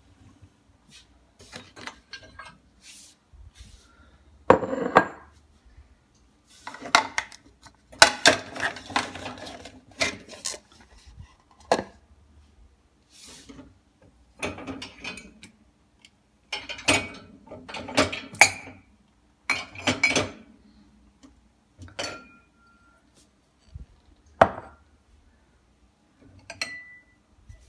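Drinking glasses and ceramic mugs clinking and knocking as they are handled in a dishwasher's wire top rack, in irregular clusters of sharp clinks; a couple of the clinks ring on briefly like struck glass.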